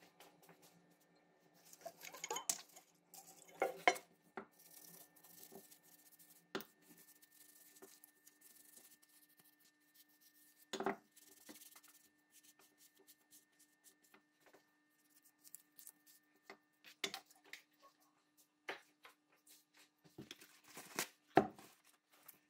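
Small metal pistol parts being handled and set down by gloved hands on a paper-covered wooden bench: scattered clinks and light knocks a few seconds apart, with paper rustling between them. The loudest knocks come about four seconds in and near the end.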